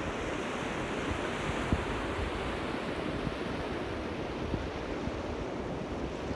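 Small waves washing onto the beach in a steady surf, with wind rumbling on the microphone.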